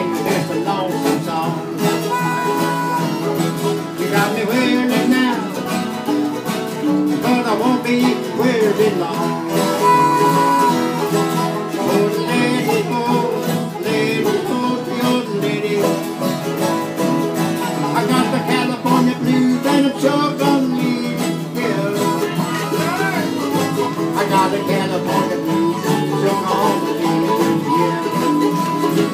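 Harmonica playing a lead break over several strummed acoustic guitars in an acoustic jam band, with the harmonica's notes bending and wavering above the steady guitar chords.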